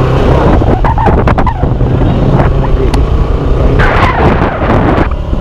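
Benelli TNT165S single-cylinder motorcycle running along at low street speed, its engine rumbling steadily under loud wind noise on the camera microphone, which surges about four seconds in.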